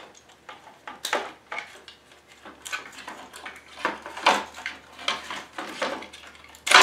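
Hands handling a plastic gate-opener actuator and tools on a metal saw table: irregular clicks, knocks and rattles, with a louder clatter near the end.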